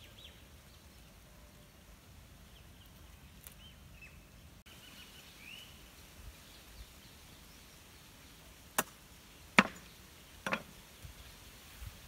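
Three sharp knocks or snaps, a little under a second apart, the middle one loudest, over a quiet rural background with a few faint high chirps in the first half.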